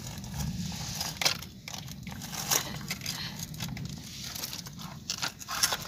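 Plastic toy wheel loader moved by hand, scraping over gritty ground as its arm lifts a wooden log onto a plastic toy trailer, with scattered clicks and knocks of plastic and wood. A steady low rumble sits underneath.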